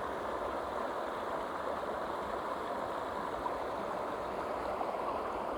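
Waterfall and its stream rushing steadily: an even, unbroken wash of falling water.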